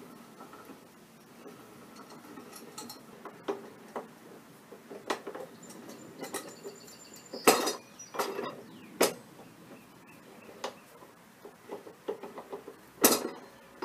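Homemade mitre-gear crank on a drill press table's height adjustment clicking and clanking as it is turned by hand: irregular metallic clicks, with two louder clanks about halfway through and near the end. The gears skip a little as the heavy table is raised.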